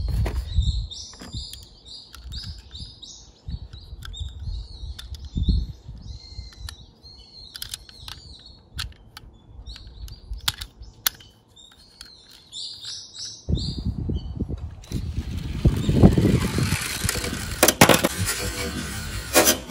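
Birds chirping in short, repeated high notes, with scattered clicks. Past the middle a broad rushing noise comes in and grows louder, with a few sharp clicks near the end.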